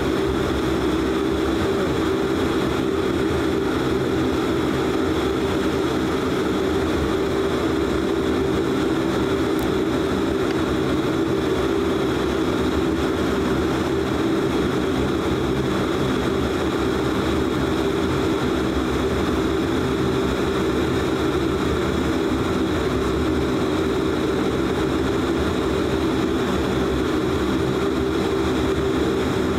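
Steady drone of a De Havilland Canada Dash 8 Q400's Pratt & Whitney PW150A turboprop engines and propellers at low taxi power, heard inside the passenger cabin: a hum of several steady low tones over a hiss.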